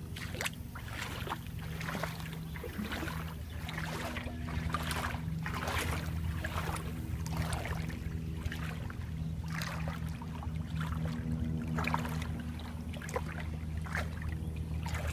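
Water lapping and splashing against the hulls of a small catamaran in irregular little bursts, over a steady low hum.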